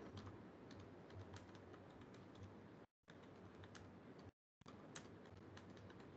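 Faint typing on a computer keyboard: irregular soft key clicks over a low background hum, heard through a video call's microphone that cuts the sound out to dead silence twice.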